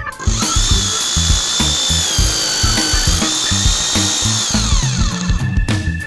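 Power drill running at speed for about five seconds, its high whine wavering slightly and falling away as it winds down near the end, over background music with a steady beat.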